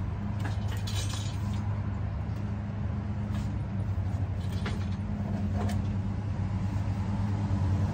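A steady low mechanical hum, with several light metallic clinks and rattles of the engine-hoist chain and hardware as a small-block Ford V8 is worked down into the van's engine bay.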